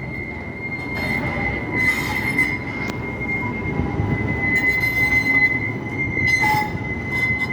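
Tram wheels squealing in a steady high-pitched tone over the rumble of city street noise.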